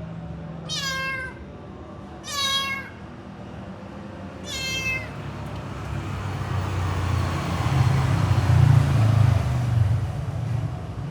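A calico cat meows three times in short, high calls about two seconds apart, each falling off at the end. After that a passing motor vehicle's low rumble swells, and it is loudest near the end.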